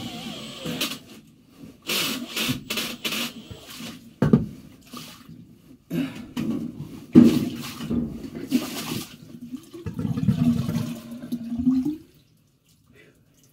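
Sewage water sloshing and splashing in a flooded clay sewer cleanout as a line is worked in it and a wad of tree roots is hauled up out of the pipe. Near the end there is a steadier gurgle of water, which stops suddenly.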